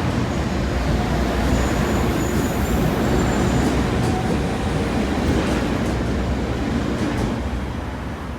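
Osaka Metro train running along a station platform: a steady, loud rumble of wheels on rail that eases a little near the end.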